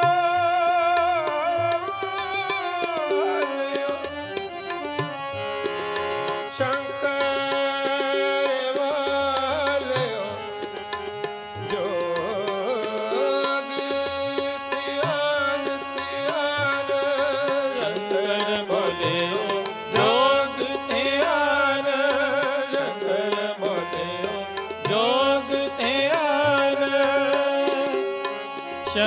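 Gurbani kirtan: a man sings a Sikh hymn with gliding, ornamented phrases over two harmoniums holding sustained chords, while a tabla keeps a steady, dense rhythm.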